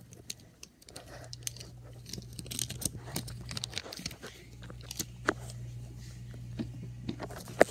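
Rustling, crinkling and clicking of things being handled close to the microphone, over a steady low hum.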